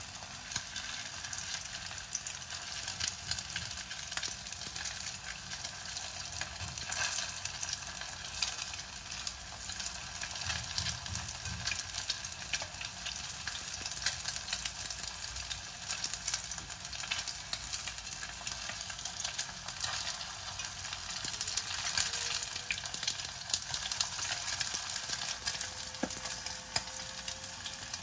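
Flour-dusted fish pieces shallow-frying in hot oil in a small saucepan: a steady, dense crackling sizzle as they are turned with chopsticks.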